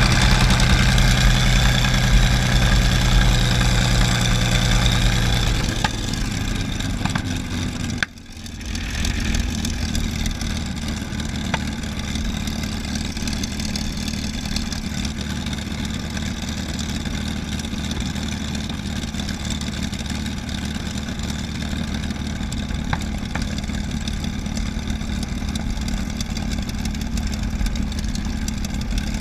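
P-51D Mustang's Packard Merlin V-12 engine heard from the cockpit during the landing rollout. It runs with a steady drone that drops to a lower, quieter note about six seconds in, dips suddenly for a moment about eight seconds in, then runs on steadily at taxi idle.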